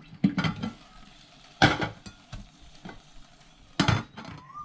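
An egg frying in a pan, with a faint steady sizzle and three sharp knocks of a utensil or the egg against the pan.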